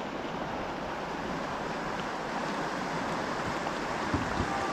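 Rushing river whitewater: a steady, even rush of moving water.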